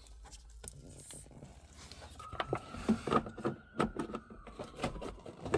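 Irregular light clicks and knocks of parts being handled, starting about two seconds in, over a faint steady high tone.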